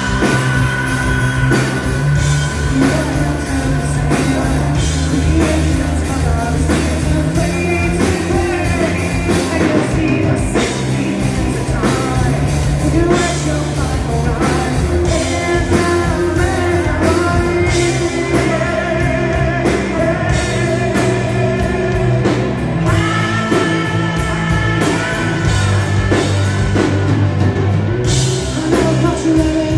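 Live rock band playing loud with a male lead singer: distorted electric guitar, bass and drum kit under the vocals, recorded from within the crowd.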